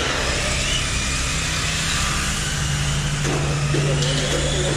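Tamiya radio-controlled model cars racing, their electric motors whining in pitch lines that slowly rise and fall as they speed up and slow down, over the hiss of tyres on concrete.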